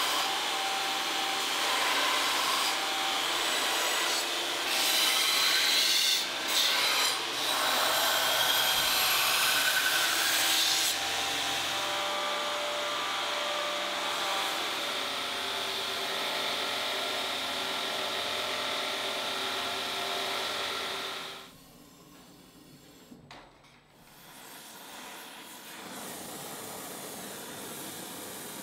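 Belt grinder running with a steel dagger blade pressed against the belt to grind its bevels: a harsh, steady rasp that shifts as the blade is worked. About three-quarters of the way through it cuts off, and after a short lull a quieter steady hiss follows.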